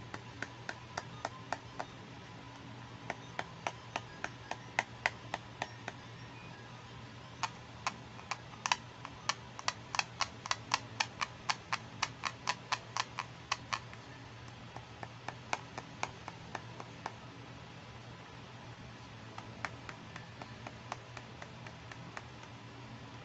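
Pink plastic toy camera's shutter button clicked over and over in runs of sharp clicks, several a second, densest in the middle, with short pauses between runs. A faint steady hum lies underneath.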